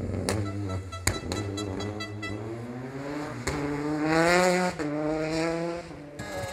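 Rally car engine accelerating hard, its pitch climbing, dropping at a gear change about two-thirds of the way in, then climbing again. Before that come a few sharp cracks and a quick run of pops.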